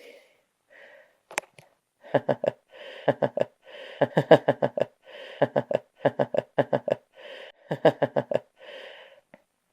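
A person's voice-like sound chopped into quick, even pulses, about five or six a second. It comes in short runs of four to six pulses with brief gaps between, starting about two seconds in.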